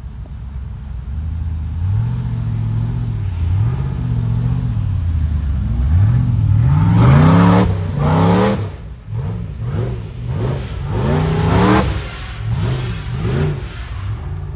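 An off-road truck's engine revving up and dropping back again and again under load, with two hardest revs about halfway through and near the end.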